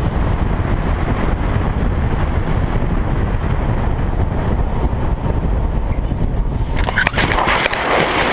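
Steady wind rush and riding noise of a motorcycle at road speed. About seven seconds in, the motorcycle crashes: several sharp knocks, then a harsh scraping as the bike and rider slide on the asphalt.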